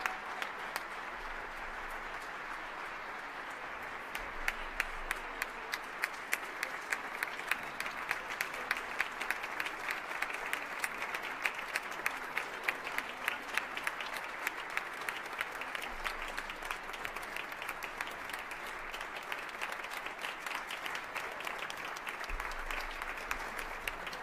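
Concert audience applauding: a steady, dense clatter of many hands clapping, with a few sharper, louder claps standing out from nearby.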